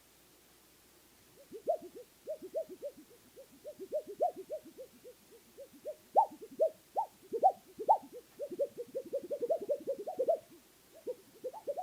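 Plastic plate giving a quick series of short squeaky tones, several a second, starting about a second and a half in and pausing briefly near the end.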